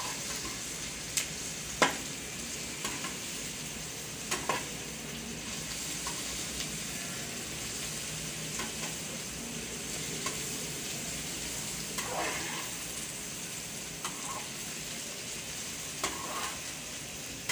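Sliced onions and fried bitter gourd sizzling steadily in ghee in a steel pan as they are stirred, the metal spoon scraping and knocking against the pan now and then.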